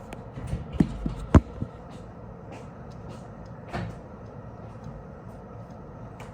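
A few scattered sharp clicks and knocks over a steady low hum, the loudest a single sharp click about a second and a half in.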